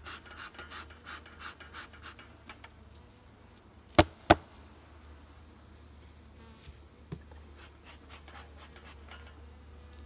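A bee smoker's bellows puffing quickly, about four puffs a second, for the first two and a half seconds. Then two loud sharp knocks about four seconds in, a third of a second apart, as the hive's top cover comes off, with honeybees buzzing faintly.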